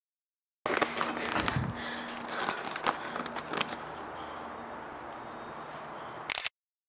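Handling noise from a handheld camera: irregular clicks, knocks and scrapes over a low background haze. It sits between two edit cuts to dead silence, with a short sharp click just before the second cut.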